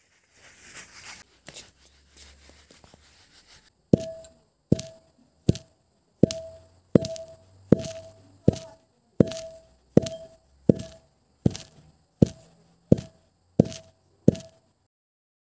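Pestle pounding in a tall metal mortar: about fifteen even strikes, a little over one a second, each ringing briefly, after a few seconds of scraping and handling noise at the start.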